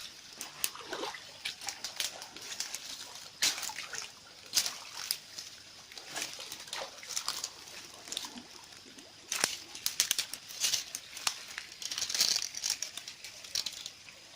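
River water splashing and sloshing in many short, irregular splashes over the steady trickle of a shallow stream.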